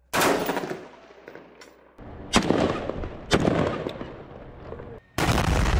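Gunfire from military firearms: a loud shot or short burst at the start that echoes away, two more sharp shots about a second apart with long rolling echoes, then another loud burst of fire near the end.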